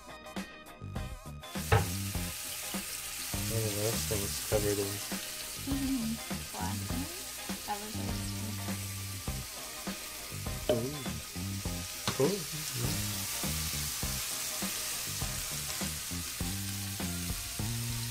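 Seasoned hogfish fillets sizzling as they fry in a pan. The sizzle starts about a second and a half in and holds steady.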